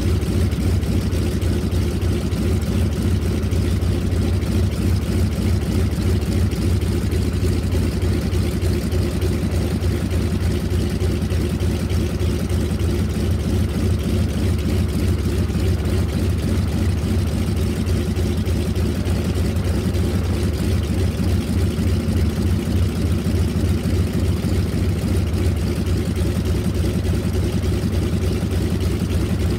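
Spartan Executive's nine-cylinder Pratt & Whitney R-985 Wasp Junior radial engine ground-running at a steady idle, its propeller turning and the aircraft standing still.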